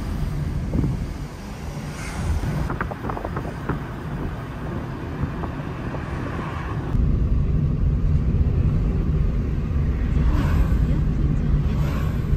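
Road and engine noise inside a moving car: a steady low rumble. About seven seconds in it changes abruptly and gets louder.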